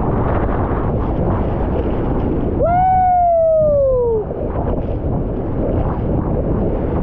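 Loud, steady roar of a large waterfall at close range, with wind and spray buffeting the microphone. About three seconds in, a person lets out one long call that falls in pitch over about a second and a half.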